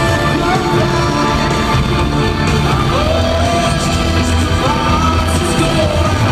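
Rock band playing live in an arena, heard from among the audience: electric guitars, bass and drums with singing, loud and continuous.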